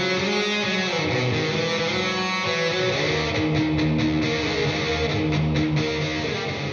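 Electric guitar music with strummed chords, beginning to fade out near the end.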